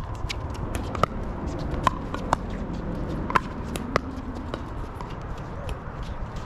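Pickleball paddles hitting the plastic ball back and forth in a rally: about six loud, sharp pops with a short ring, roughly one every half second to second, and the rally stops after about four seconds. Fainter pops come from games on neighbouring courts.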